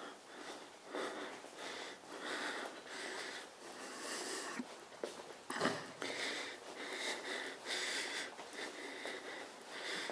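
Soft footsteps on a hard corridor floor at a walking pace of about two steps a second, each step a brief scuffing hiss.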